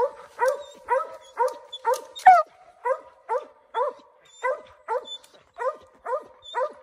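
Mountain Cur barking treed: a steady, rhythmic run of short chop barks, about two a second, with one louder bark a little past two seconds in, as the dog holds a squirrel up a tree.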